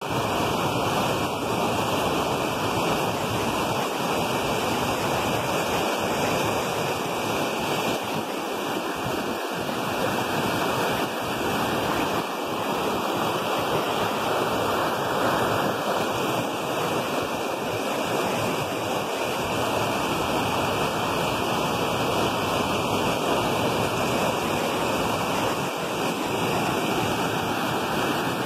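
Muddy floodwater rushing and churning white over rocks, swollen after heavy rain. It makes a steady, unbroken rushing noise.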